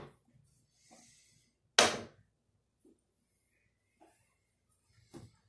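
A few sharp clacks of craps chips and dice on the table: a loud one about two seconds in, a couple of soft ticks, and another clatter near the end.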